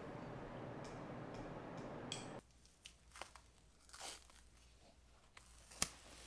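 A steady hiss of room noise that stops abruptly about two seconds in, then a few short crackles and rips of a bandage being undone from a small dog's leg, with one sharper snap near the end.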